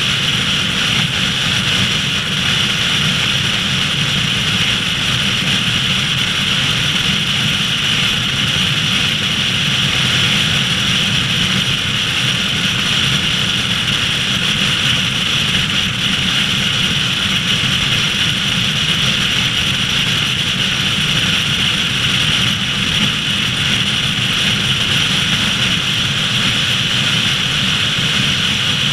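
Steady wind rush and tyre noise of a car cruising at highway speed, an even rushing noise that doesn't change.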